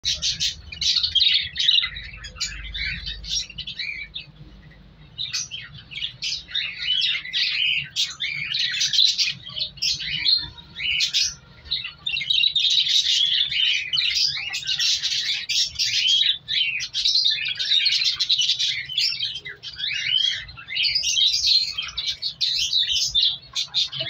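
Budgerigars chattering with dense, rapid chirps, with a short lull about four seconds in.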